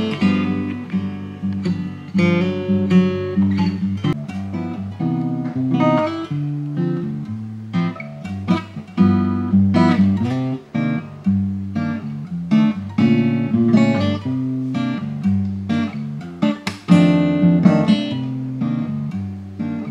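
Acoustic guitar played with a mix of plucked single notes and strummed chords.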